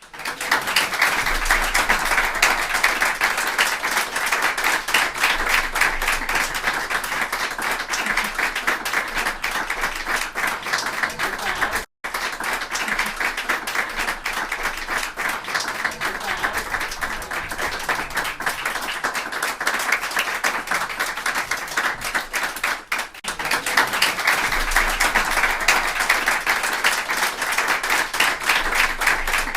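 A group of people applauding: dense, continuous hand-clapping. It cuts out for an instant about twelve seconds in and dips briefly a little over twenty seconds in, where the recording is spliced.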